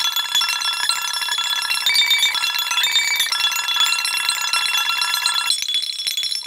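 Light background music played on bell-like tones: a quick tune of short, high notes stepping up and down.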